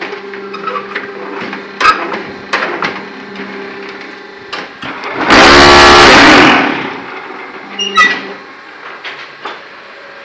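ZCJK4-15 hydraulic block-making machine running with a steady hum, broken by scattered metal clanks. About halfway through comes one loud buzzing burst of about a second and a half as the mould is compacted.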